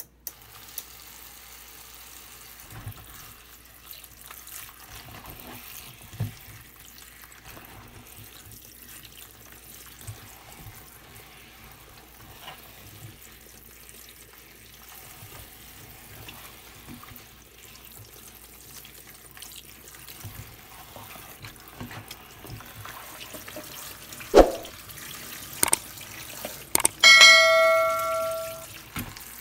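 Tap water running onto shiitake mushrooms in a plastic colander in a sink as hands rub them clean, with small scattered knocks. Near the end come two sharp clicks and a bell-like ding lasting about a second and a half, from a subscribe-button sound effect.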